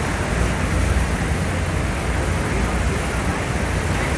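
The Rhine Falls' water crashing down, a steady, loud rushing noise with a deep rumble underneath.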